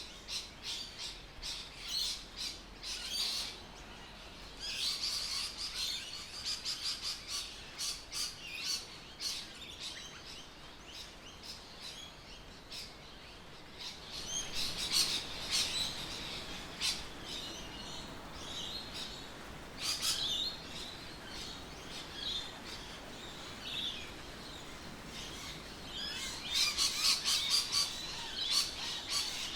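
Birds chirping and calling, with many short, quick notes that come in busy clusters over a steady background hiss.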